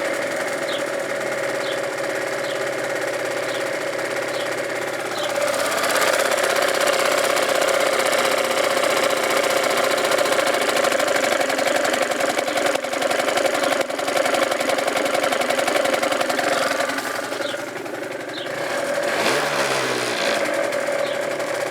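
Gilera DNA 50 scooter's 50cc two-stroke engine running. The revs rise about five seconds in, drop back briefly near the end, then pick up again.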